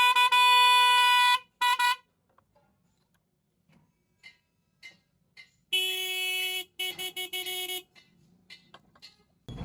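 Electric car horns sounding on a test bench: a higher-pitched horn holds a long blast, then gives one short toot. About halfway through, after a few small clicks, a lower-pitched, quieter horn sounds for about a second, then gives several quick toots.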